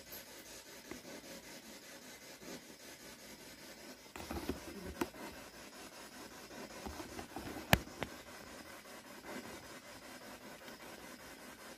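Faint steady hiss with a brief rustle about four seconds in and a few sharp clicks, the loudest about two thirds of the way through.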